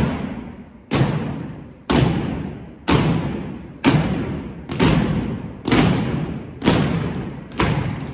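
A drill team's boots stomping in unison on a gymnasium floor, one heavy stomp about every second, nine in all, each echoing through the hall.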